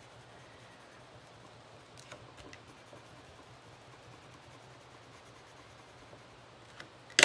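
Faint scratching of a water-soluble coloured pencil drawing short fur-line strokes on stamped card, a few of them audible about two seconds in, over quiet room tone.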